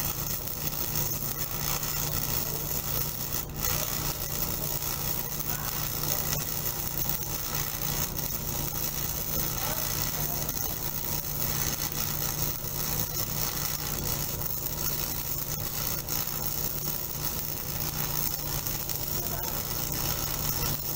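Electric arc welding: the arc's steady crackling hiss as the fitter runs a weld, over a constant low machine hum.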